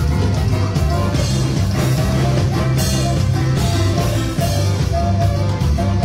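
A live band playing dance music, amplified through a PA, with a steady bass line and drums.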